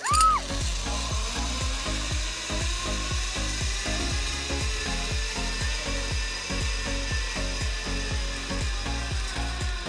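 A zipline trolley's pulleys rolling along the steel cable, a steady whirring rush, with background music and a steady beat. A loud sudden sound comes right at the start.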